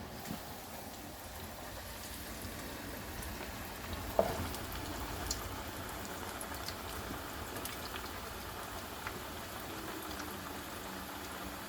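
Corn-flour-coated potato chips deep-frying in hot oil: a steady sizzle with fine crackles. A single sharp knock about four seconds in, like a utensil against the pan.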